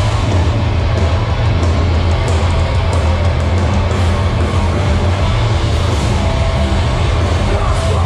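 Hardcore band playing live through a PA: loud, bass-heavy distorted guitars and drums, heard from inside the mosh pit.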